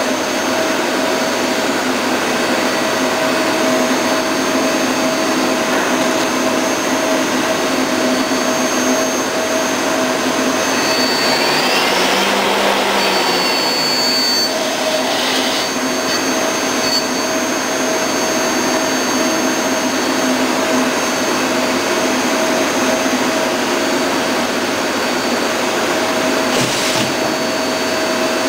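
Mazak Integrex 200SY CNC turning and milling centre running through a machining cycle: a steady loud whir with a low hum and a high whine. About halfway through, a whine rises and falls back, with a short high steady tone.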